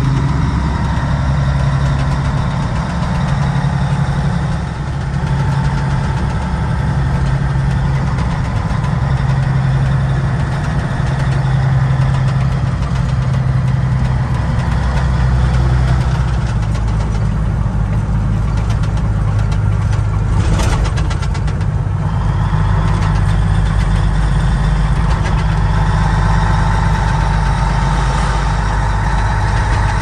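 Caterpillar diesel engine of a 1986 Ford LTL 9000 truck running steadily under way, heard from inside the cab. Its pitch drops a little about halfway through, and a brief rattle comes about two-thirds of the way in.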